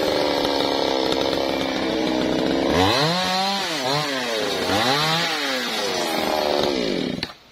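Stihl two-stroke chainsaw running at high revs, then revved up and down twice by the throttle. It drops away and is switched off with a click near the end.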